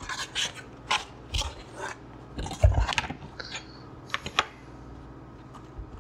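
Scratchy rubbing and crackling as a foam flying wing is turned and slid across a cutting mat. About four seconds in, two sharp clicks of metal tools follow as hemostat forceps are picked up, then only faint handling.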